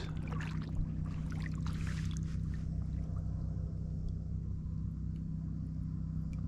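Steady low hum with a few faint ticks and light water sounds against the hull.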